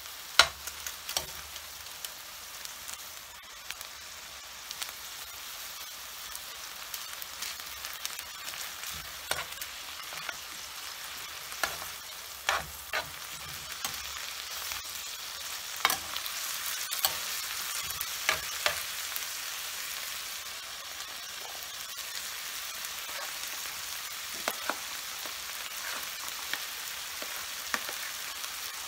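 Prawns and chicken sizzling in a nonstick frying pan with a steady hiss, stirred with a spatula that clicks and scrapes against the pan many times.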